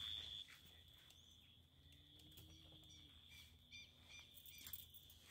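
Near silence outdoors: a faint steady high-pitched tone, with a few faint bird chirps in the middle.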